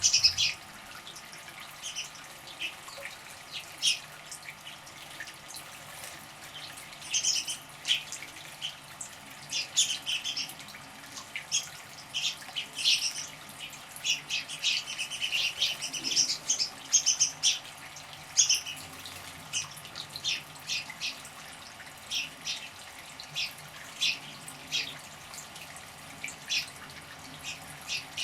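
Small birds chirping in short, high calls at irregular intervals, some in quick runs, with water splashing as birds bathe in a bird bath.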